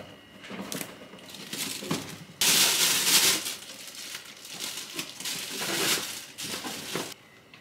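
Handling noises: irregular rustling and crinkling, with a louder hissing rush lasting about a second a little over two seconds in.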